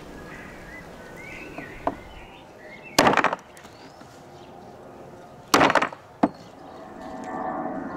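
Hatchet chopping into a cooked beef rib on a wooden stump block: two heavy chops about two and a half seconds apart, with lighter knocks before and after.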